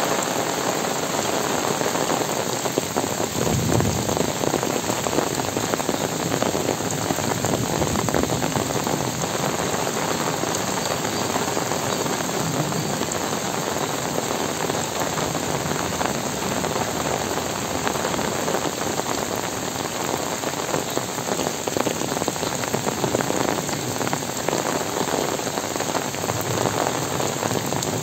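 Heavy rain falling steadily on trees and a leaf-littered forest floor, a dense, even hiss of countless drops that does not let up.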